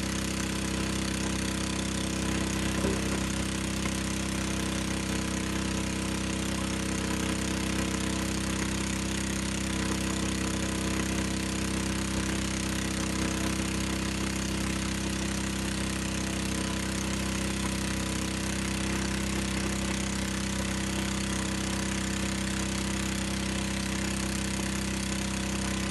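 Small engine of a borehole drilling rig running steadily, an even drone that does not change.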